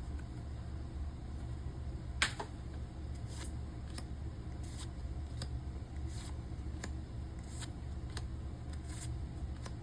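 Pokémon trading cards being handled and flicked through one at a time: a string of short crisp card slaps, about one every two-thirds of a second, the loudest about two seconds in, over a steady low hum.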